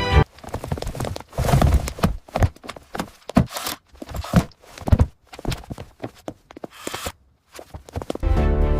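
A run of irregular knocks and clicks, several a second with short gaps between them; background music comes back in near the end.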